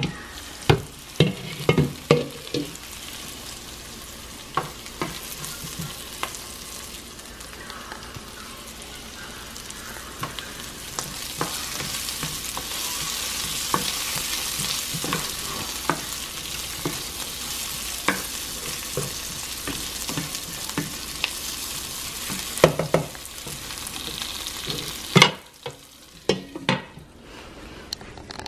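Diced green pepper and onion sizzling in olive oil in a skillet while a spoon stirs them, clinking and scraping against the pan. The sizzling cuts off suddenly about 25 seconds in, followed by a few knocks.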